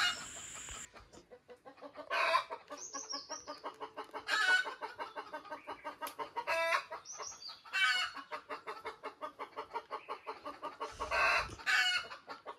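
Domestic chickens clucking: a steady run of quick, short clucks, with louder calls breaking in every couple of seconds.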